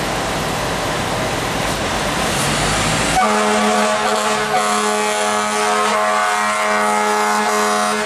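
Loud, dense rushing noise for about three seconds, then a fire rescue truck's air horns sound one long, steady blast that holds to the end.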